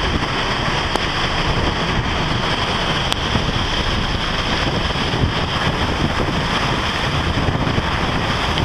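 Storm wind blowing hard across the microphone over a rough, breaking sea, a loud steady rush of noise, with a couple of faint clicks.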